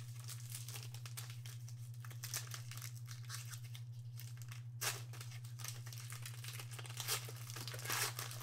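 Foil wrapper of a Panini XR football card pack being torn open and crinkled by hand. There is a louder crackle about five seconds in and more crinkling near the end, over a steady low hum.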